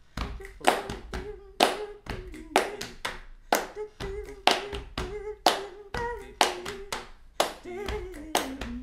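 Body percussion in a funk rhythm: claps and slaps on the chest and legs. A loud hit falls about once a second, with quicker, lighter hits between, and a voice sings a melody line along with it.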